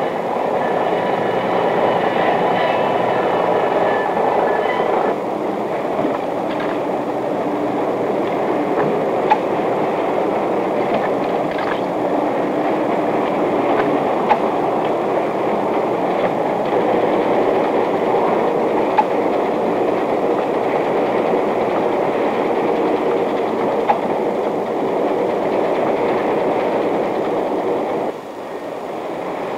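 Automated bakery dough-handling machinery running: a steady mechanical noise, with a few faint whining tones over it in the first five seconds and an occasional sharp click. It drops in level a little near the end.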